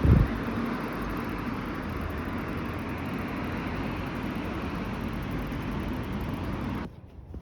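Steady rushing background noise with a single thump at the start; the noise cuts off abruptly near the end.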